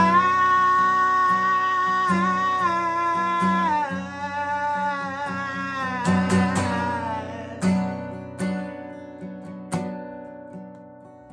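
Acoustic guitar strumming under a man's long held sung note. The note dips in pitch twice and fades out about seven seconds in, and the guitar carries on, getting steadily quieter.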